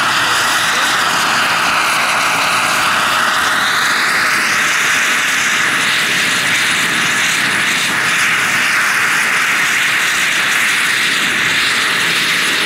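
Jakadofsky 5000 model gas turbine of a large RC scale Bell 412 helicopter running steadily with its whine and the rush of the spinning rotors as the model hovers and manoeuvres low. A higher whine dips in pitch and rises back over the first four seconds or so.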